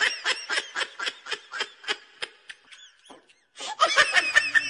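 Children laughing hard: high-pitched laughter in quick, rhythmic bursts that stops about two and a half seconds in and starts again near the end.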